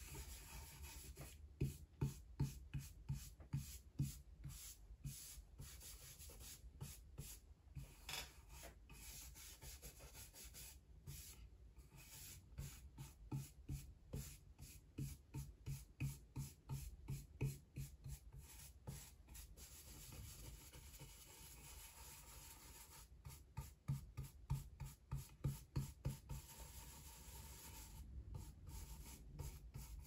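Small brush scrubbing pigment onto a carved woodblock in runs of quick back-and-forth strokes, about three a second, with short pauses between the runs.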